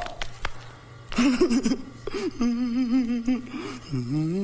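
A sudden gasp-like sound at the start. From about a second in comes a wavering, whimpering voice: drawn-out notes with a quick wobble in pitch, breaking off and starting again.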